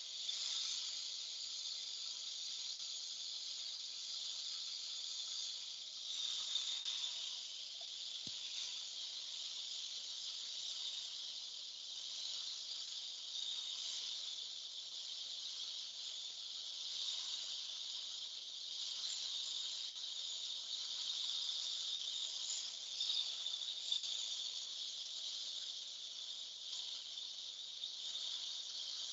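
Liquid nitrogen flowing from a hose into the cooling tank of a CXT 353 frozen sample aliquotter, boiling off in a steady hiss while the tank is filled.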